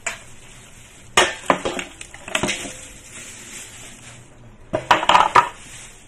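A stainless steel bowl of dried bird's nest pieces being handled: a few sharp knocks and clatters against the metal, a couple about a second in and a quick cluster near the end.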